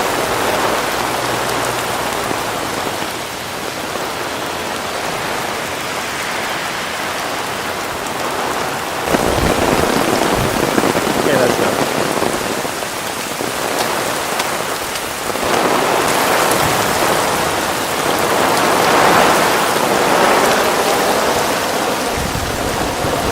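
Heavy rain from Hurricane Isaac pouring down steadily, growing heavier about nine seconds in and again a little past halfway.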